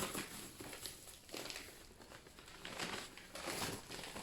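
Packaging being handled: irregular rustling and crinkling of wrapping and boxes, in several separate bursts.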